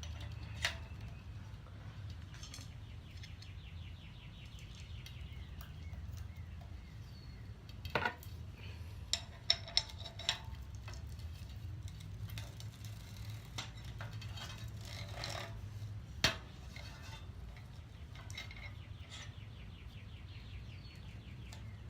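Metal tools clinking and knocking against a bicycle cassette while the lockring is worked off with a chain whip and lockring tool: a few sharp clicks, a quick cluster of them about nine to ten seconds in, and two stretches of rapid fine ticking.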